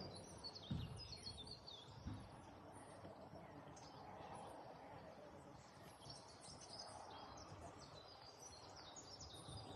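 Faint birdsong: many small birds chirping and twittering from below, over an otherwise near-quiet background, with a couple of soft low knocks in the first two seconds.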